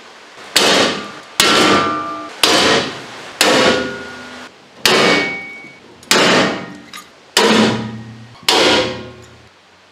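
Hand pop-rivet gun setting rivets into the aluminum bracing of an aluminum boat hull: eight sharp snaps roughly a second apart, each ringing briefly through the metal.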